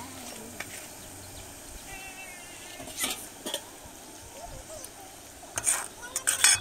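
Fish curry bubbling at a rolling boil in a metal pot, with a metal ladle stirring it and knocking against the pot a few times, the loudest knocks near the end.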